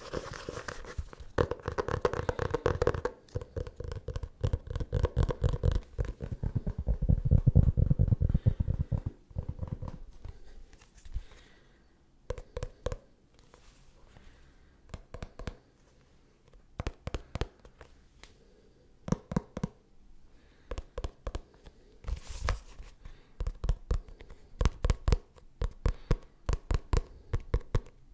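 Fingers tapping quickly on a leather notebook. The taps come in dense, heavier runs for the first nine seconds or so, then in short, sparse clusters with quiet gaps between them.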